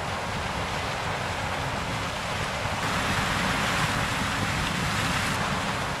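John Deere combine harvester cutting dry standing corn: a steady din of the machine running with stalks rushing through the corn head. It grows a little louder and brighter about three seconds in.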